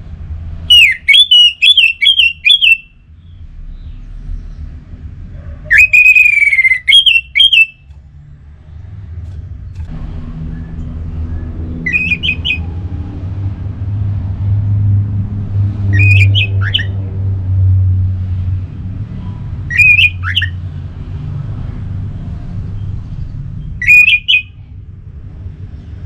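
Orange-headed thrush (anis merah) singing loud, rapid phrases of jumbled whistled notes: two long phrases near the start, then short bursts about every four seconds. A low rumble swells underneath from about ten seconds in.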